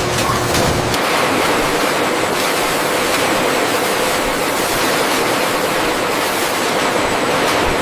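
Steady rushing noise of processing-plant machinery with a faint hum; a lower rumble drops away about a second in.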